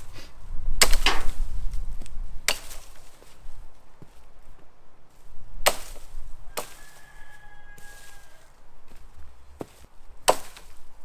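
Axe chopping into a small tree trunk: about seven sharp strikes at uneven intervals, sometimes two in quick succession.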